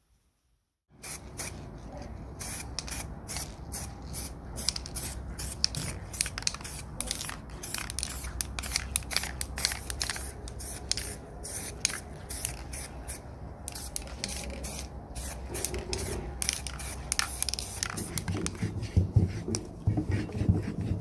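Cloth rubbing over the painted rim of an old washing mangle's cast-iron wheel: quick, irregular scratchy strokes over a steady low hum. The sound begins about a second in, and there are some heavier bumps near the end.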